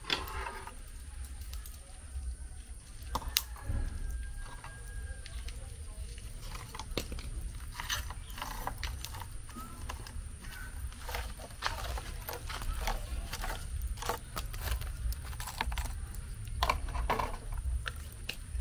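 Irregular small clicks, taps and crunchy scrapes of food and utensils being handled, over a low steady rumble.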